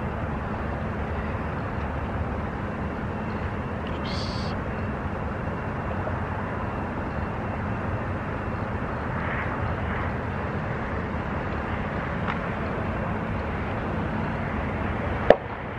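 Steady roadside rumble of vehicles, with a brief hiss about four seconds in and a sharp click near the end.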